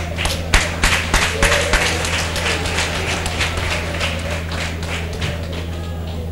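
A congregation applauding: a burst of many hand claps that thins out after about four seconds, over a steady low hum.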